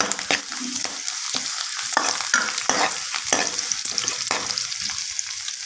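Chopped onion, green chilli and crushed garlic frying in hot oil in a pan, sizzling steadily, while a spatula stirs them, scraping against the pan over and over.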